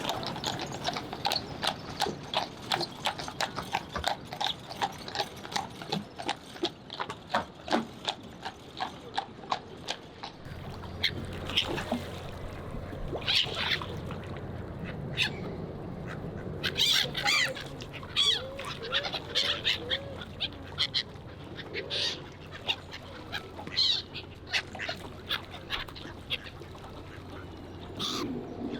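Ducks and other water birds quacking and calling at a pond as they jostle for food: a fast, dense run of short calls for the first ten seconds or so, then sparser separate calls. A low steady hum comes in about ten seconds in.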